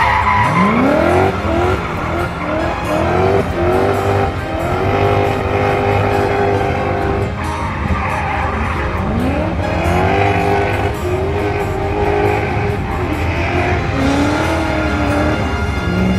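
A drift car's engine revving hard: its pitch climbs, holds high and drops again and again as the car slides, over the continuous squeal and hiss of its rear tyres spinning and skidding on asphalt.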